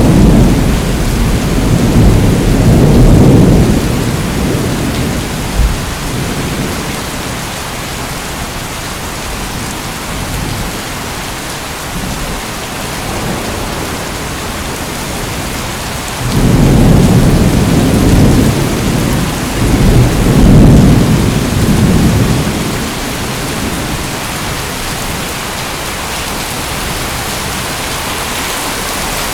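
Steady rain with two long rolls of thunder: one rumbling and fading over the first few seconds, another rolling in about halfway through and lasting several seconds.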